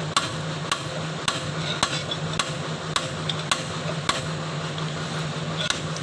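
Hammer blows on metal repeated at a steady pace, a little under two a second, over a continuous low engine hum.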